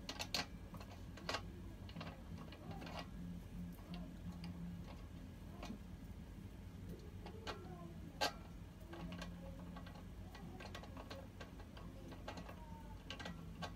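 Irregular metallic clicks and taps of pliers working the bolts on a folding desk's steel frame, with one sharper click about eight seconds in.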